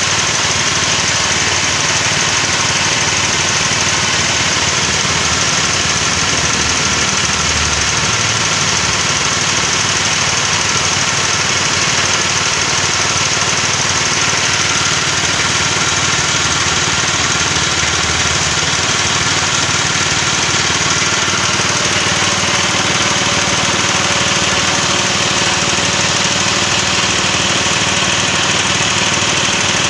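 River in flood: muddy floodwater rushing and churning over rocks with a loud, steady rush.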